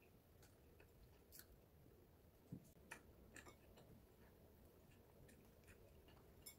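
Near silence with scattered faint soft clicks and crackles of donuts being torn apart by hand and eaten, a little louder about two and a half seconds in and near the end.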